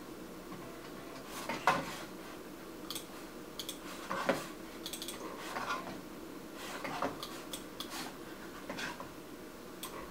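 About a dozen light clicks and knocks, spread irregularly, some sharp and thin, a few duller and fuller, over a faint steady room hum.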